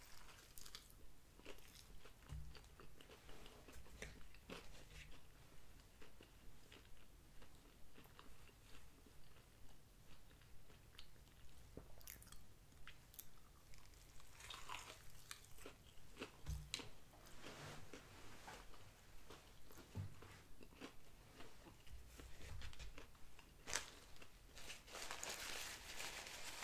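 Quiet, close-up biting and chewing of a Popeyes spicy fried chicken sandwich, a steady chewing rhythm with occasional crunches from the breaded chicken and bun. Near the end a paper napkin rustles as sauce is wiped off the fingers.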